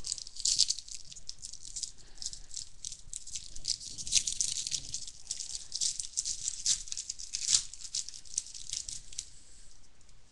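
Baseball card packs being handled and opened: a rapid, crackling rustle of pack wrappers and cards that dies away about a second before the end.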